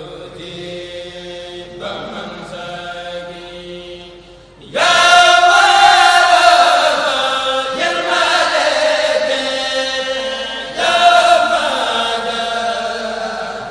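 Chanted recitation of a khassida, an Arabic devotional poem, sung in long held notes phrase by phrase. A much louder phrase comes in sharply about five seconds in, and the voice swells again about eleven seconds in.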